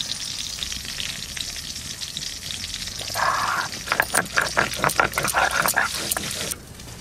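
Stone pestle (nora) grinding cumin and coriander seeds on a flat grinding stone (shil): a run of rough scraping strokes, about four a second, starting about three seconds in and cutting off suddenly near the end. Oil is sizzling in a frying pan underneath.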